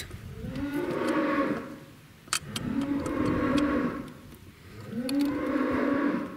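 Cattle mooing: three long moos one after another, each rising and then falling away, with a few sharp clicks between them.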